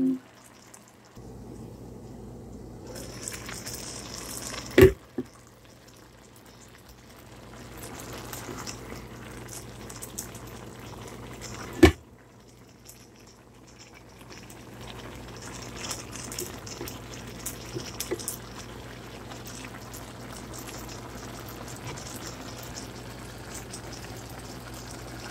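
Squash and vegetables in coconut milk simmering in a wide pan: a steady bubbling hiss. Two sharp clicks, about five and twelve seconds in.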